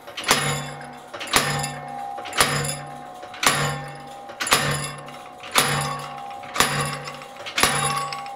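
A treadle hammer drives a hot steel blank into a mouse-shaped forging die. There are eight even blows, about one a second, each with a short metallic ring.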